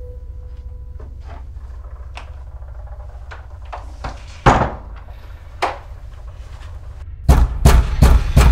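Knocking and banging on a door: faint scattered taps at first, one loud bang about four and a half seconds in and a lighter one a second later, then a quick run of loud bangs near the end, over a steady low rumble.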